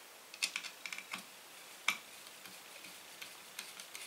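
Small, irregular clicks and ticks, about a dozen, of a Phillips screwdriver working a small screw into a 3D printer's plastic cooling-fan housing.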